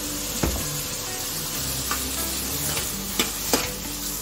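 Chopped tomatoes and onions sizzling in a metal kadai as a metal ladle stirs them, with a few sharp clicks of the ladle against the pan: one about half a second in and two close together after about three seconds.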